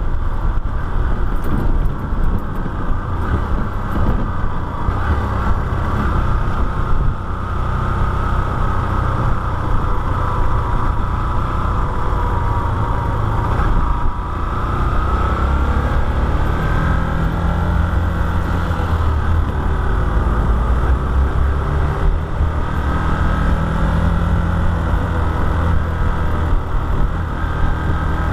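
Motorcycle engine running while the bike is ridden along the road, its pitch slowly rising and falling, over heavy wind rumble on the microphone.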